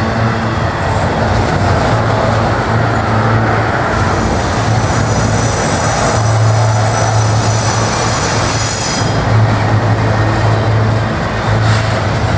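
Freight train of double-stack container well cars rolling past: a steady rumble and clatter of steel wheels on the rails, with a high-pitched wheel squeal from about four to nine seconds in.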